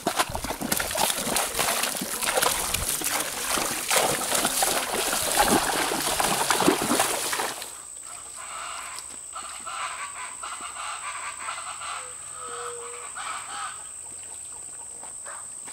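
Horses' hooves splashing and sloshing through shallow muddy floodwater, a dense run of wet splashes. About halfway through it gives way abruptly to quieter marsh sound: a steady high-pitched insect drone with faint bird calls.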